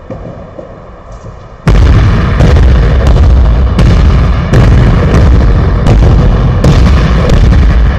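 A basketball dribbled hard on a wooden gym floor, starting about two seconds in. The bounces come about every 0.7 s and are very loud and booming, with heavy echo from the hall.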